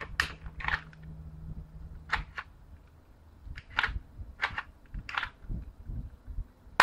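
Hard-plastic 1911-style airsoft pistol being handled: a string of small, irregular clicks and taps from its parts and grip, and one sharp, loud click near the end.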